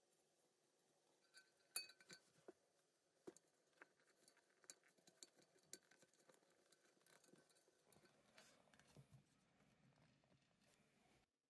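Faint handling sounds of small parts on a cast-iron Christmas tree stand: scattered light clicks and taps, with one sharper, briefly ringing clink about two seconds in and a soft rustle near the end.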